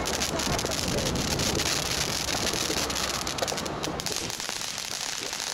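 Ground fountain firework spraying sparks: a steady fizzing hiss thick with fine crackles.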